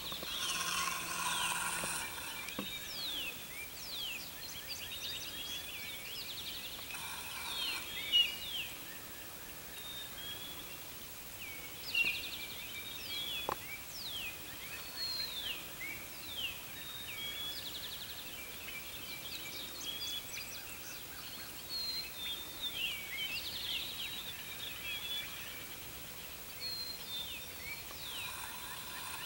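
Songbirds chirping and singing in a busy dawn chorus, with a wild turkey calling briefly three times: near the start, about seven seconds in, and near the end.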